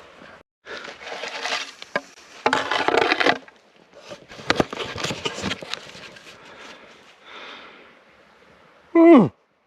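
Rustling and scraping of gear and clothing handled close to the microphone, with a few sharp clicks. Near the end comes a short, loud grunt-like call that falls steeply in pitch.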